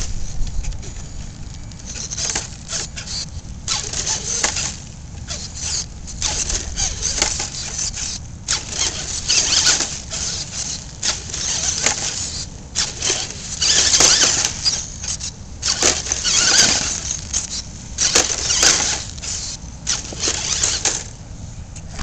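Radio-controlled rock crawler (TLT chassis, Ford Courier body) climbing a boulder, its electric motor and drivetrain running in irregular bursts of throttle while the tyres scrub against the rock; the longest, loudest pushes come in the middle and second half.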